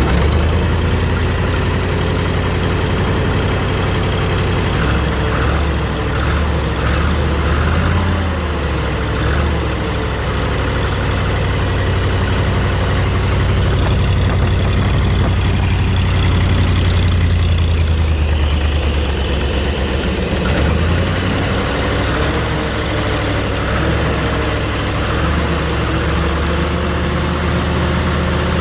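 Engine of a 302 air compressor idling steadily with a deep, even hum, running on a newly fitted fuel pump that the owner says makes it run better.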